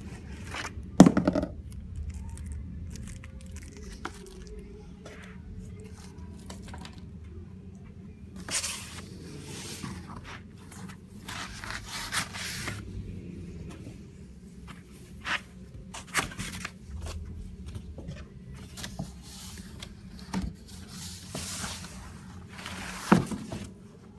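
Unpacking noise: cardboard box and foam packing inserts scraping and rubbing, and plastic and cloth wrapping rustling, in irregular bursts. A few knocks come through, the loudest about a second in and another near the end.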